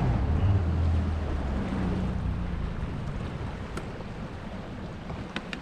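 Tinny's outboard motor running at low speed and fading away, with water and wind noise on the microphone; a few sharp clicks near the end.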